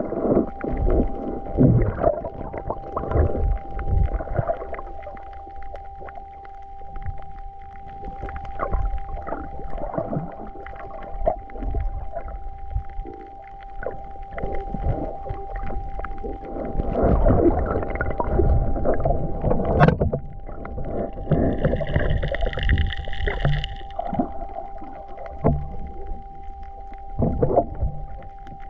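Muffled underwater noise picked up by a submerged camera: a steady high hum with irregular low thuds, knocks and bubbling, and a brief higher tone about three-quarters of the way through.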